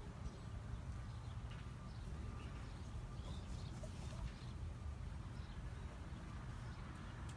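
Faint outdoor farmyard ambience: a steady low rumble with scattered faint bird chirps.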